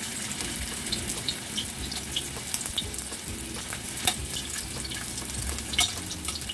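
Ginger slices frying in shallow oil in a metal wok: a steady sizzle with small crackling pops. A metal spatula moves them around, knocking sharply against the wok twice, about four and six seconds in.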